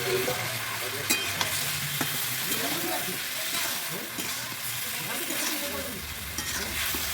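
Fried pointed gourd and potato pieces sizzling in hot spiced oil in a kadai while a spatula stirs them, with a few brief scrapes of the spatula against the pan.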